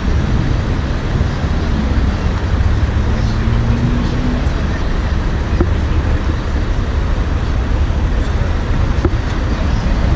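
Steady traffic noise from a multi-lane motorway: a continuous rumble of engines and tyres, with one vehicle's engine hum standing out for a couple of seconds in the first half.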